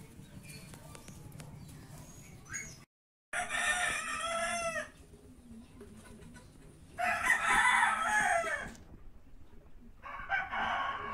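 Rooster crowing three times, about three seconds apart, each crow a second and a half or so long. A brief dead-silent gap comes just before the first crow.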